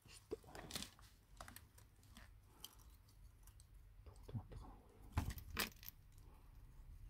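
Faint scattered clicks, taps and rustles of hands handling small smartphone parts, a Sony Xperia 5 logic board and flex cables being fitted into the phone's frame, with two louder taps about five seconds in.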